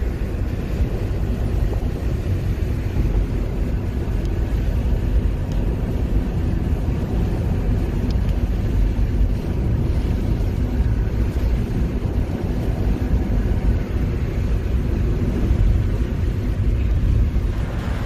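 Steady road and wind noise inside a moving car, a low rumbling hiss with no breaks.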